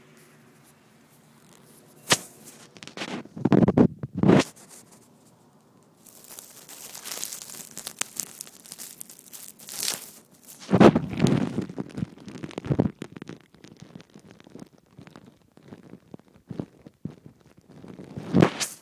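Irregular rustling and crackling from a phone being handled and brushed against grass and fur, with several sudden muffled thumps, the loudest about two, four and eleven seconds in.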